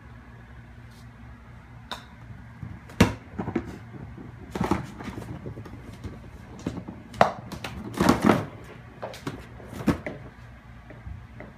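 Golf ball clacking and knocking against the plastic cups and ball-return of an indoor putting mat as a kitten bats it about: irregular sharp knocks, the loudest about three seconds in and a quick cluster around eight seconds, over a steady low hum.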